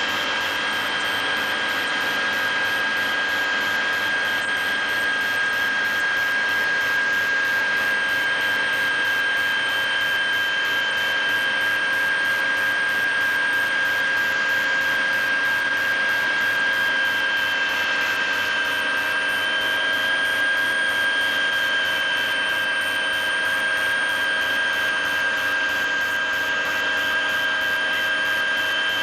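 Helicopter cabin noise: a steady high whine with several held tones over a constant rush of engine and rotor noise, heard from inside the cabin.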